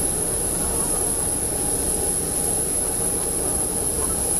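Steady noise of a parked jet airliner running on the apron: a constant high whine over an even rumble, with no change in pitch or loudness.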